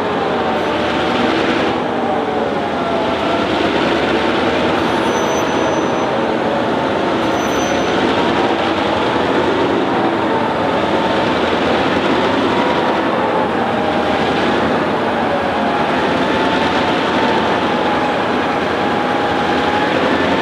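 Heritage first-generation diesel-electric locomotives of a loaded grain train, including B74 and S303, passing close by at low speed. Their engines run with a loud, steady drone whose tones waver slowly in pitch, over the rumble of the train rolling on the rails.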